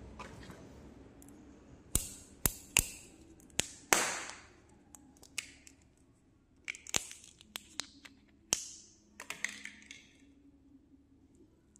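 Thin plastic wrapper of a strawberry-shaped soft candy being torn open and peeled off: a string of sharp clicks and short crinkles, in two clusters with a pause between.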